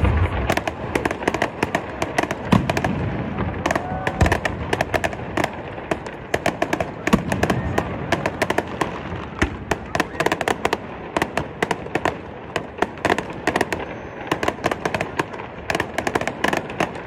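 Fireworks display: a dense run of sharp crackling pops and bangs, with a few deeper booms, heaviest right at the start and about two and a half and seven seconds in.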